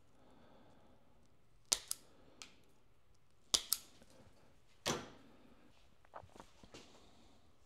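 Sharp snaps of a hand wire crimper-stripper closing on thin electrical wire, about six in quick pairs over a few seconds, then a few fainter clicks as the wire is handled.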